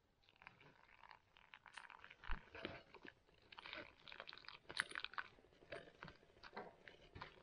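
Faint, irregular crunching and rustling: many short clicks and crunches at an uneven pace, with no voice.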